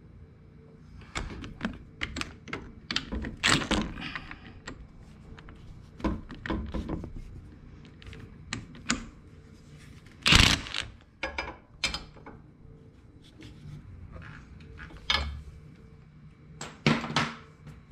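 Metal clunks and clicks from handling the clutch assembly on a 125cc ATV engine, with a short, loud burst about ten seconds in from a cordless impact wrench run on the clutch nut.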